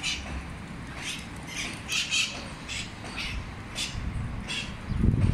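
Flock of parrots calling: short shrill squawks repeating about twice a second, with a low rumble near the end.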